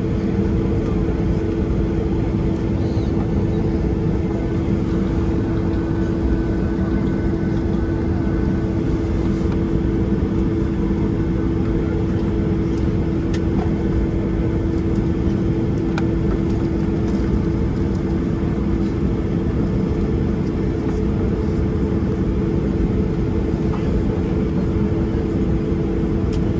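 Steady cabin noise of a Boeing 737-800 airliner: a deep, even rumble with a constant low hum and no change in pitch or level.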